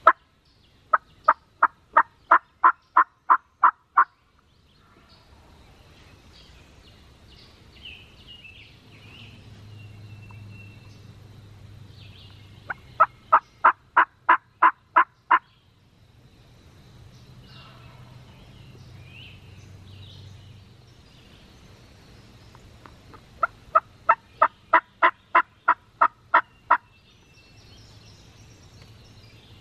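Turkey yelping: three loud runs of about ten evenly spaced yelps, roughly ten seconds apart. Faint songbird chirps can be heard between the runs.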